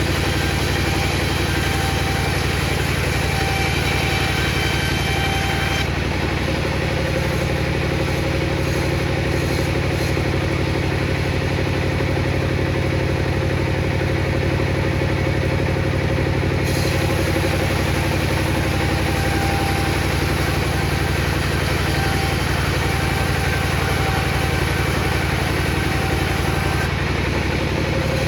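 Table saw motor running steadily, a constant hum with no clear change in load.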